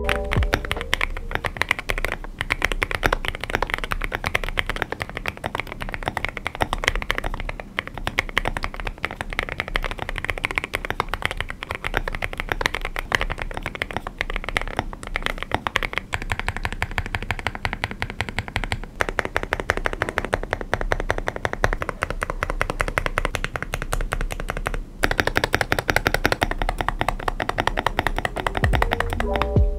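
Fast, continuous typing on a Monsgeek M1W aluminium mechanical keyboard fitted with Wuque Studio Morandi linear switches, hand-lubed for much of the run: a dense stream of keystrokes with a brief break about 25 seconds in.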